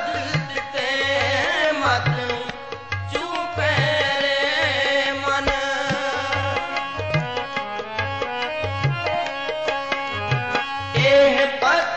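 Sikh kirtan music: a harmonium melody of held notes over a steady tabla beat, with wavering melodic runs at the start, about four seconds in, and near the end.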